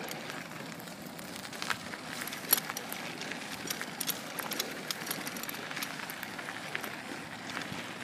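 Steady outdoor hiss with many scattered light clicks and crackles, irregular rather than rhythmic.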